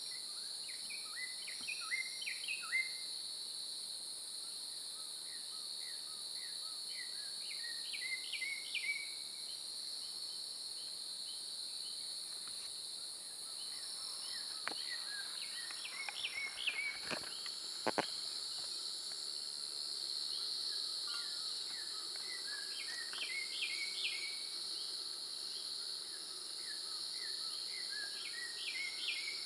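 Steady, high-pitched chorus of insects, with a bird repeating a short phrase of quick notes about every six seconds. A couple of sharp clicks stand out around the middle.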